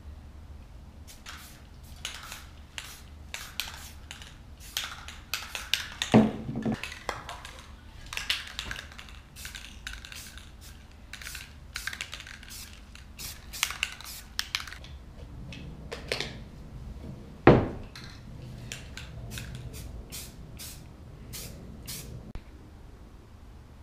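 Aerosol spray-paint cans hissing in many short bursts as they coat a rifle. Two loud knocks, about six seconds in and again past the middle.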